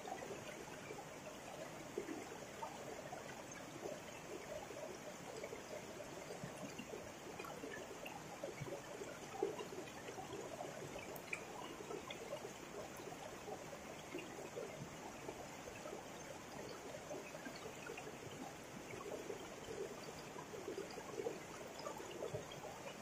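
Water of a small river flowing steadily.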